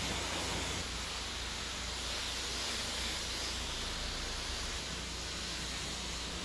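Self-service car wash high-pressure wand spraying water onto a car's foam-covered body to rinse it off: a steady hiss of spray over a steady low hum.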